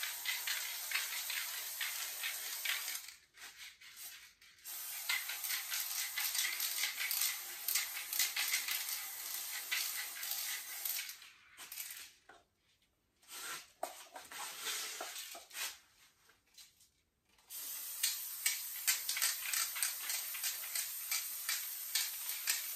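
Aerosol spray-paint can hissing in long bursts, with a break about three seconds in and two more in the middle.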